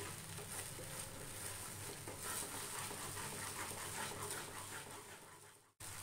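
Wooden spatula stirring thick banana paste in a non-stick kadhai with ghee, faint scraping and squelching with a light sizzle; it fades away near the end.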